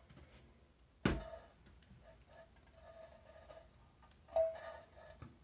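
Clicks and light knocks from the plastic parts in an empty toilet tank as the new flapper and its chain are tried by hand: a sharp click about a second in, small ticks and rattles after it, and a second knock near the end.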